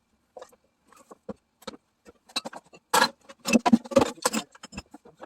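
Metal tools and parts being handled: a run of clinks, clicks and knocks, sparse at first and densest about three to four and a half seconds in.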